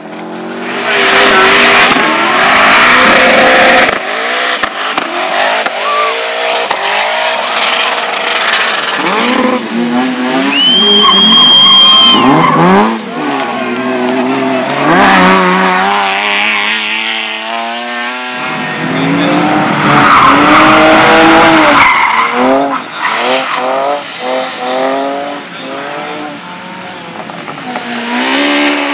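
Race car engines revving hard, their pitch climbing and dropping again and again as cars accelerate and lift on a dirt track, with a brief high squeal about ten seconds in.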